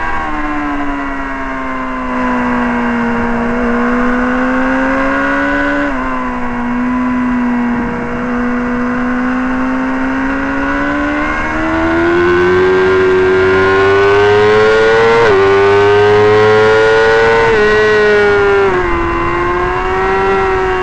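Sport motorcycle engine heard onboard at racing speed, held at high revs through a run of corners. Its note sags over the first few seconds, holds low for a while, then climbs steadily, with a few small jumps and dips near the end.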